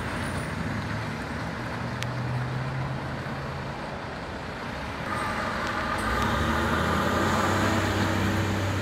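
Fire ladder truck's diesel engine running as the rig drives off and turns. It grows louder about five seconds in, with a higher whine joining the engine note.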